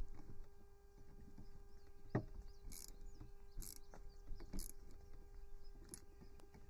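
Screwdriver turning the clamp screws on a brass garden-hose end fitting: scattered faint clicks and taps of metal, with one sharper click about two seconds in.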